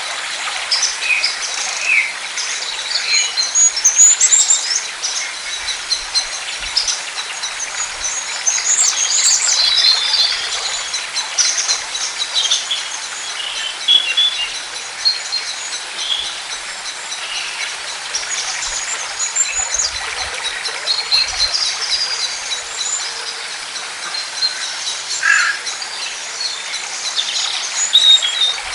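Many wild birds chirping and singing in overlapping short calls, over a steady outdoor background hiss.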